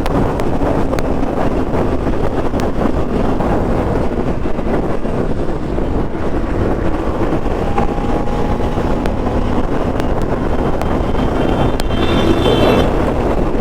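Bajaj Pulsar NS200's single-cylinder engine running hard at speed, under heavy wind noise buffeting the microphone.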